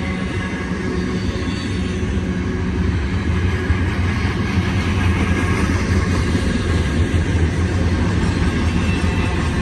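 BNSF double-stack intermodal container cars rolling past on the rails at speed, a steady low rumble of wheels and railcars that swells slightly partway through.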